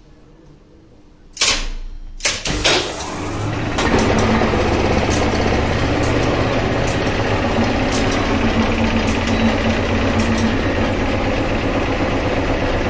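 Old relay-controlled lift's controller clacking loudly as its relays and contactors pull in, about a second and a half in and again a second later. Then the lift's hoist motor starts and runs steadily with a low hum, with relays clicking now and then over it.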